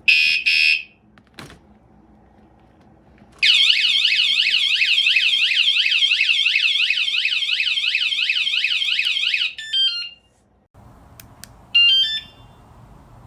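wsdcam 113 dB wireless vibration motorcycle alarm going off. A short beep, then about six seconds of loud warbling siren that sweeps rapidly up and down about four times a second and ends in a quick run of falling tones. A brief chirp comes near the end.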